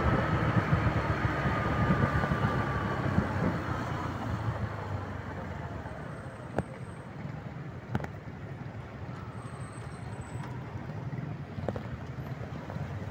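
Bajaj Platino 110 motorcycle being ridden, its single-cylinder four-stroke engine running with a low rumble that grows quieter over the first several seconds. Two sharp clicks come about halfway through.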